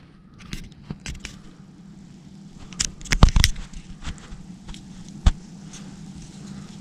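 Rustling and handling noise inside a tent, with a run of sharp clicks and knocks that peaks in a loud cluster about three seconds in and gives one more strong knock a little after five seconds, over a steady low hum.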